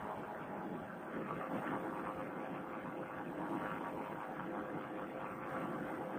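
Paramotor trike's Vittorazi Moster two-stroke engine and propeller running steadily in flight, mixed with wind rush, picked up through a helmet Bluetooth headset microphone.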